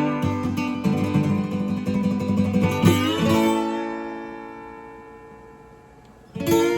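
Acoustic guitar music: chords strummed and left to ring, a new chord about three seconds in that slowly fades away, then another chord struck near the end.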